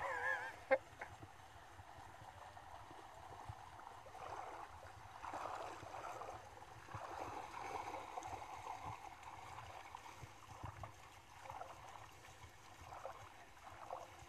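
A flock of sheep bleating: one wavering bleat right at the start, then scattered, fainter bleats through the rest. Hooves splash in shallow river water as the sheep wade in to drink.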